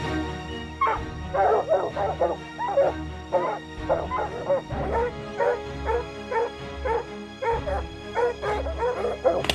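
A dog barking repeatedly, about two to three barks a second, starting about a second in, over background music with steady held tones.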